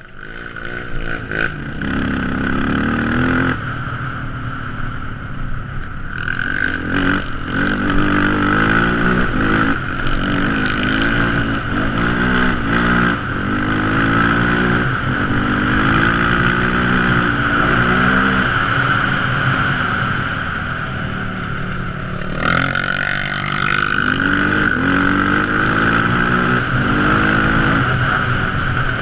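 Quad ATV engine being ridden hard, revving up and easing off again and again, its pitch climbing and dropping about once a second, over a steady high hiss.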